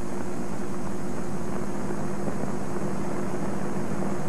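Steady hum with an even hiss throughout, the background noise of an old film soundtrack; no other sound stands out.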